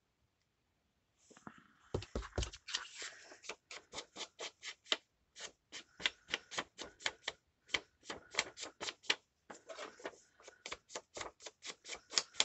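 Ink pad dabbed again and again onto paper edges to ink them, a run of quick light taps about four or five a second, starting about a second and a half in.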